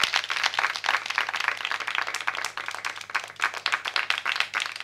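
A few people clapping their hands in applause, a quick, dense patter of claps.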